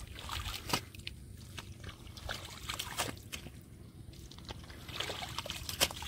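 Bare hands scooping, squelching and slapping wet mud in the shallow water of a flooded rice paddy, with irregular small splashes and trickling water, as the mud is packed into a field bund.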